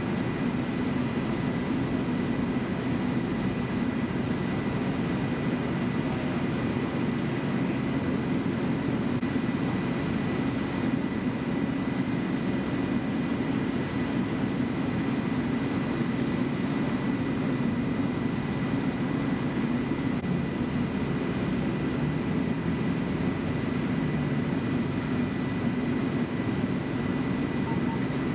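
Steady low drone of fire apparatus diesel engines running at the scene, unbroken throughout, with a faint steady high whine above it.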